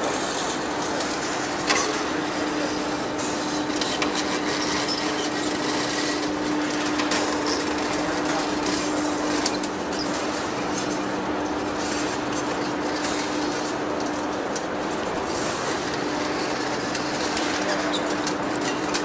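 Large metal lathe taking a cut on a big steel workpiece: a steady machine hum under the hiss of the cutting tool, with scattered sharp ticks and crackles from the breaking chips.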